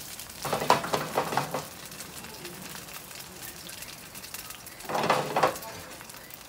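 Seafood pajeon sizzling steadily in oil in a nonstick frying pan over a gas burner. Two brief louder clattering bursts, about half a second in and about five seconds in, come from the pan being shaken on the burner grate.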